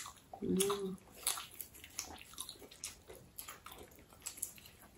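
Close-up mukbang eating sounds: wet chewing and mouth clicks as soft fried pancakes dipped in sour cream are bitten and chewed, a string of small irregular smacks and ticks. A short hum of voice comes about half a second in.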